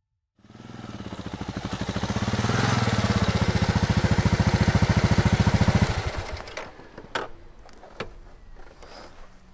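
Kawasaki KLR650's single-cylinder engine running with an even thump of about ten beats a second, swelling in over the first couple of seconds. It drops away about six seconds in, and a few sharp clicks and knocks follow.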